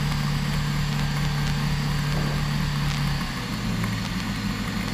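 Diamond DV20 Katana's Rotax flat-four engine and propeller running steadily on short final with flaps set for landing, heard inside the cockpit. A little over three seconds in, the engine hum drops to a lower pitch as power comes back for the landing.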